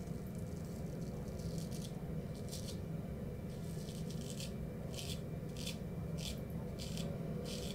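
Hollow-ground Ralph Aust straight razor scraping through lathered stubble on the cheek in a series of short rasping strokes, about one every half second to a second: the blade audibly "talking" as it cuts. A low steady hum lies underneath.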